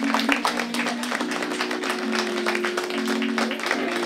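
Music of held low notes that shift in pitch every second or so, with an audience clapping throughout.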